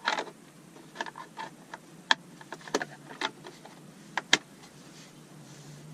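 Irregular hard plastic clicks and knocks from handling a DeWalt DCV581H wet-dry vacuum's body and snap-in accessories, about a dozen of them, the sharpest pair about four seconds in.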